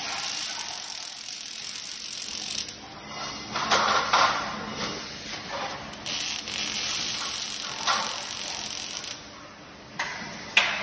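Robotic MIG welding arc crackling steadily in separate weld runs: one for the first two and a half seconds, short bursts around four seconds, and a longer run from about six to nine seconds. After a quieter gap, a single sharp click comes near the end.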